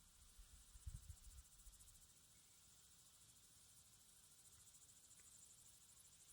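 Faint, steady, high-pitched chirring of field insects, a fast even pulsing that runs on unbroken. A brief low rumble comes about a second in.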